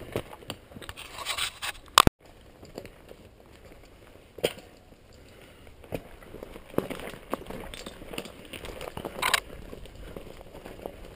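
Crunching and scraping of a mountain unicycle's tire over loose rocks on a trail, with scattered clicks and knocks. One very loud sharp knock comes about two seconds in, and the sound cuts out for an instant right after it.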